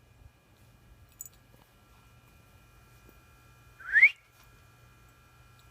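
A person's single short whistle, rising in pitch, about four seconds in: a whistle calling the dog.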